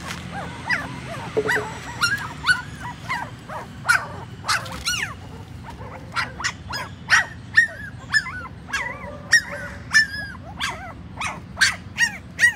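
Young nursing puppies whimpering and yelping over and over: short high cries that rise and fall in pitch, coming thicker and louder in the second half.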